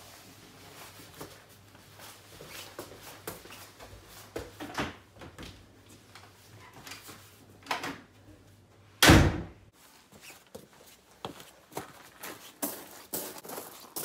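A wooden front door slams shut about nine seconds in, the loudest sound. Before it come scuffs and light knocks of boots being pulled on and stepped across a tiled floor; after it, footsteps walking outdoors.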